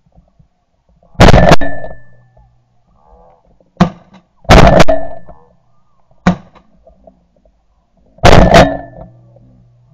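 Three loud shotgun blasts about three to four seconds apart, each fading over about a second, with two sharper, quieter cracks in between.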